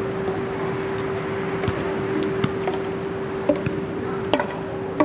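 Steady wash of surf with a constant low tone beneath it. From about three and a half seconds in come a few sharp knocks, under a second apart.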